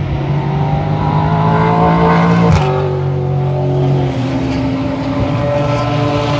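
Racing cars' engines accelerating past, the pitch rising and then falling sharply about two and a half seconds in with a brief crack, as a car goes by; engines keep running afterwards.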